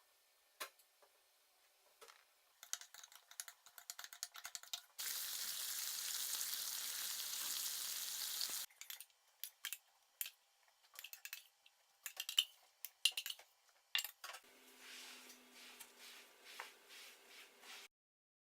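Kitchen sounds: scattered clicks and clinks of utensils and dishes, then a few seconds of loud, steady sizzling of food frying in a pan that starts and stops abruptly, followed by more clicks and a fainter sizzle.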